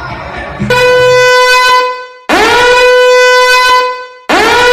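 Three loud, buzzy horn-like blasts. Each swoops quickly up in pitch, then holds one steady tone for about a second and a half before cutting off. Faint background music plays before the first blast.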